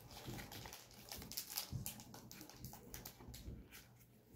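Faint irregular crinkling and rustling of Pokémon booster-pack foil wrappers and cards being handled, over a low steady hum.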